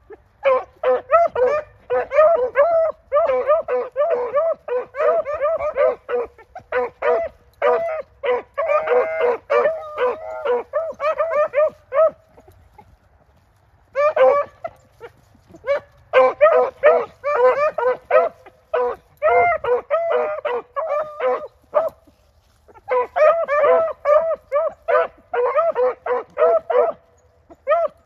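Rabbit hounds giving tongue on a rabbit's trail: fast runs of high, ringing barks, several a second, breaking off briefly about twelve seconds in and again just after twenty seconds.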